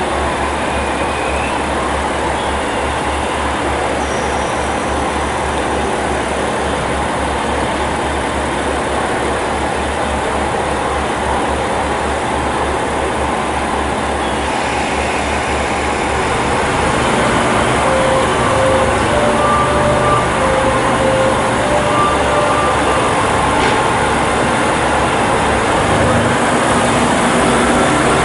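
A KiHa 47-series diesel railcar pulls slowly into a station with its diesel engine running at a steady low pulse. It grows louder about two-thirds of the way through as the train draws near, with brief high tones near the end.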